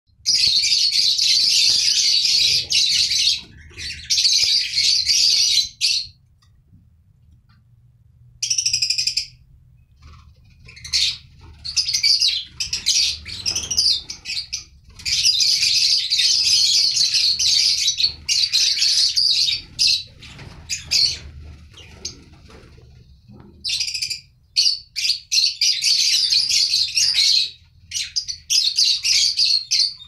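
A flock of lovebirds chattering in loud, shrill bursts of several seconds, broken by short lulls, the longest about six seconds in.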